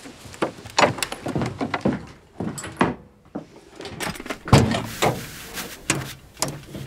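A series of sharp knocks and clunks from objects being handled, the loudest about four and a half seconds in.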